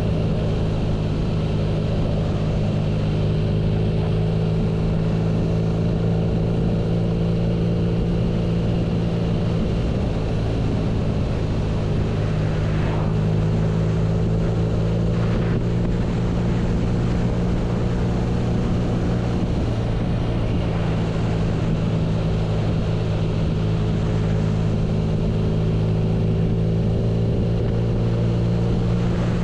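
BMW R nineT's air/oil-cooled boxer twin running at steady revs, a constant deep engine note that holds its pitch throughout.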